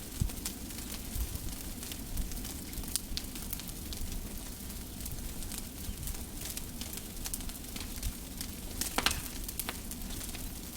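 Rubbish bonfire crackling and hissing steadily, with sharp pops scattered through it and a brief cluster of louder pops about nine seconds in.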